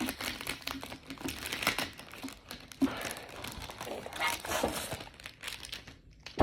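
Packaging crinkling and rustling in the hands as it is torn open to get at a rolled poster, with a dense run of small crackles throughout.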